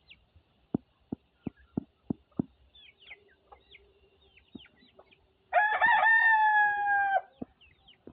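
A rooster crows once, a loud call of nearly two seconds held at a fairly even pitch, about five and a half seconds in. Before it come a quick series of six sharp clicks, about three a second, with high short chirps scattered throughout.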